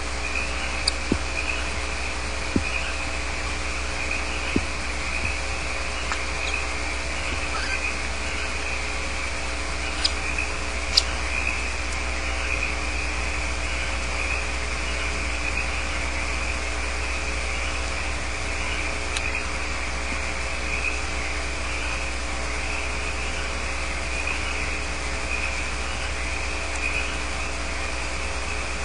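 Crickets trilling steadily at a high pitch over a constant low hum, with a few sharp knocks in the first ten seconds or so.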